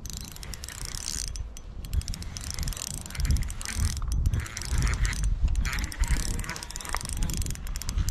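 Fishing reel being cranked steadily as a hooked fish is reeled in, its gears whirring with a fine run of clicks, over wind buffeting the microphone.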